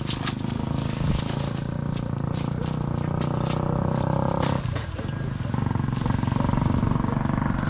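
A small engine running steadily, dipping briefly about five seconds in and then running on a little louder. Over it come scattered light snaps and rustles of leaves and twigs as a stick is pushed through a tree's branches.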